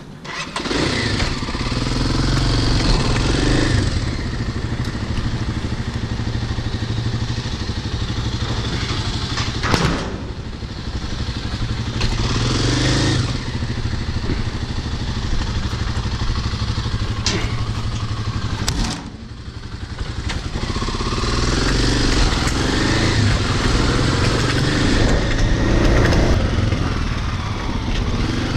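Kawasaki dirt bike's engine running as it is ridden, revving up and easing off several times, with a sharp knock about ten seconds in.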